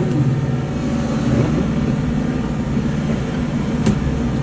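Kubota L-series tractor's diesel engine running steadily, with a single sharp click near the end.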